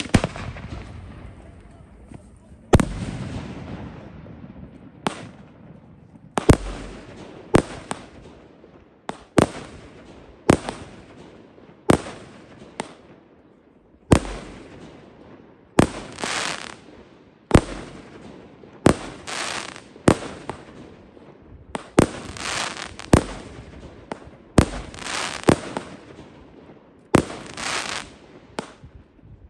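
Fireworks display: aerial shells bursting one after another, a sharp bang about every second or so, several trailing off in a hiss.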